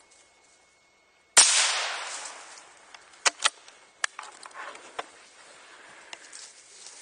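A single .17 HMR rimfire rifle shot about a second and a half in, a sharp crack that dies away over about a second. A few short clicks and rustles follow.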